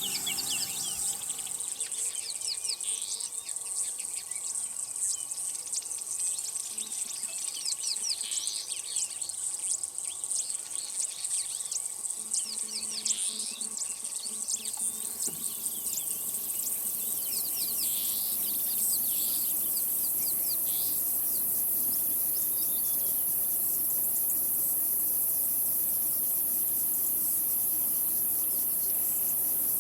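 Wild birds chirping and calling in quick short notes over a steady high-pitched insect chorus; about halfway through the bird calls mostly stop and the insect drone, crickets or cicadas, carries on louder and even.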